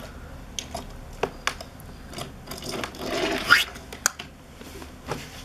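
Small plastic toy dump truck and loader handled on a hard tabletop: scattered light clicks and knocks of plastic parts, with a scraping rub about three seconds in.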